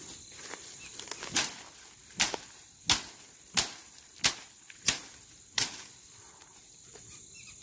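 A wooden stick beating down dry thorny brush and grass: seven sharp strikes about two-thirds of a second apart, flattening the thorns to clear a way through.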